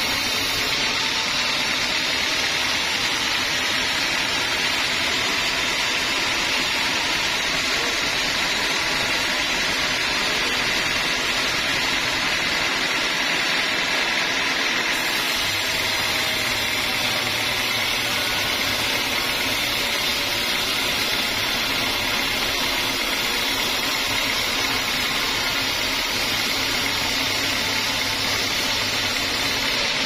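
Band sawmill running steadily as its blade rips a lengthwise cut through an old teak log: an even, unbroken machine noise.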